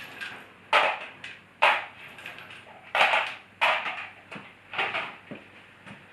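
A series of sharp knocks and clatters, five louder ones spaced irregularly over about four seconds, with fainter knocks between them.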